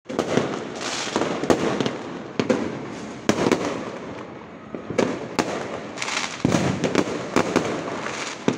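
Fireworks going off in many places at once: a continuous crackle broken by frequent, irregular sharp bangs.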